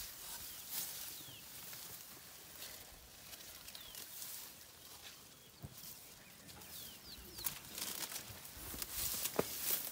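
African elephant browsing on a tree: leafy branches rustling and twigs snapping, with the sharpest cracks about seven and a half and nine and a half seconds in. A bird repeats short falling calls in the background.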